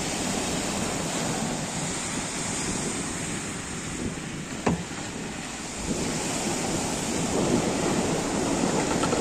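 Ocean surf breaking and washing up a sandy beach, with wind buffeting the microphone. A single brief knock sounds about halfway through.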